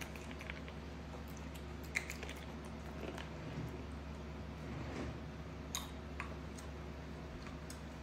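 A young macaque monkey chewing and biting into small green fruits, with scattered light clicks and taps over a steady low hum.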